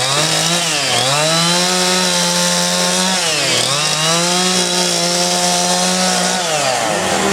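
Two-stroke chainsaw running at high speed for wood carving, its pitch dropping sharply and climbing back three times, about a second in, past the middle and near the end.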